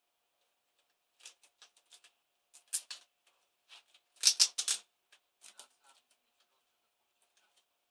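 A small hand tool clicking and scraping against an ASUS K55VJ laptop keyboard and its metal backing plate while the keyboard is pried and peeled away. The sounds are short, irregular clicks and scratches, with a louder, scratchier cluster about four seconds in.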